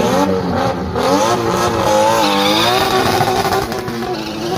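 Two drag cars, one a Nissan Skyline R34, launching off the start line and accelerating hard, their engine notes climbing, dropping back at each gear change and climbing again.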